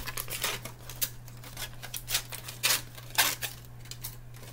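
Aluminium foil crinkling and crackling as it is handled and folded by hand, in irregular crackles, the loudest a little under three seconds in and just after three seconds.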